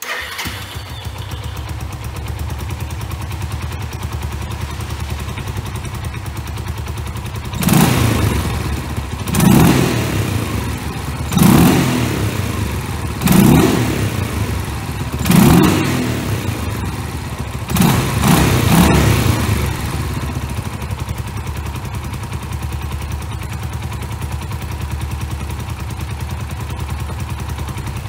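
Suzuki Grasstracker Big Boy's warmed-up single-cylinder carbureted engine idling through a DELKEVIC stainless silencer with sound-deadening added. Through the middle it takes about six quick throttle blips, roughly two seconds apart, each revving up and dropping back to idle. It then settles into a steady idle again.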